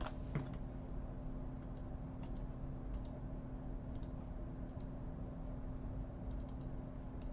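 Scattered clicks of a computer keyboard and mouse, a dozen or so at irregular spacing, with a short cluster near the end, over a steady low hum.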